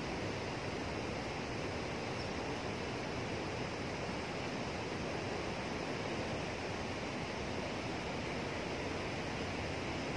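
Steady rush of fast, turbulent water churning through a concrete channel.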